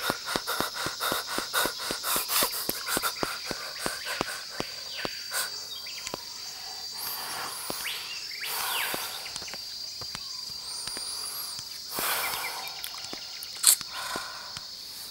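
A steady high insect drone with brisk footsteps on a dirt path, about four a second, for the first six seconds. A few short, high bird chirps come in the middle.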